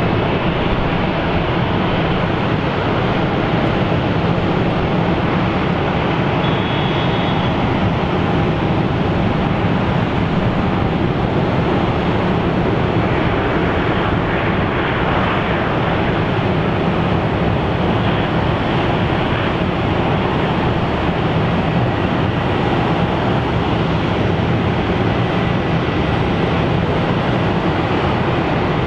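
Jet airliner engines running steadily.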